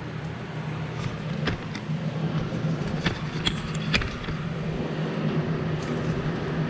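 A serpentine belt tool levering the 2003 Ford Explorer's belt tensioner back while the belt is popped off the pulleys: scattered light clicks and metallic knocks over a steady low hum.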